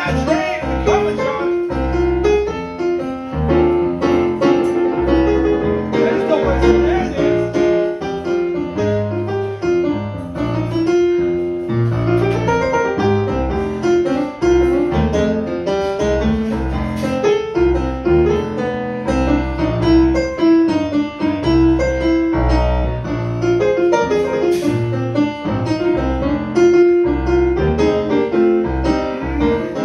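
Bluesy piano solo on a Nord Stage 2 stage keyboard, with a steady bass line under right-hand melody and chords.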